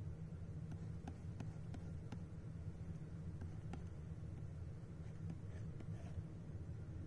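Faint taps and short scratches of a plastic stylus nib on a pen display's screen as sketch strokes are drawn, a few irregular ticks a second, over a steady low hum.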